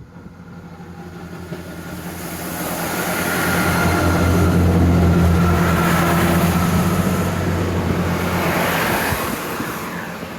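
A large vehicle passes close by, its engine running steadily with a deep hum. It grows loudest about halfway through and then fades away.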